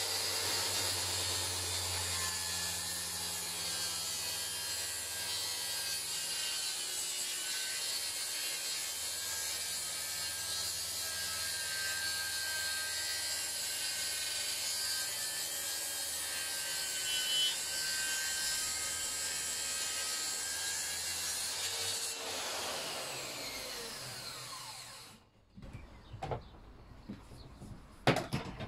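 Makita plunge-cut track saw fitted with a 40-odd-tooth Freud Pro blade ripping a long pine board along its guide rail, running steadily and cutting cleanly and comfortably. About 22 seconds in the saw is released and winds down, the remaining hum cuts off about 25 seconds in, and a few knocks follow near the end.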